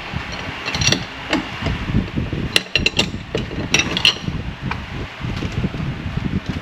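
Wrench and metal parts clinking and knocking irregularly, some strikes ringing briefly, as the new idler pulley's bolt is tightened down.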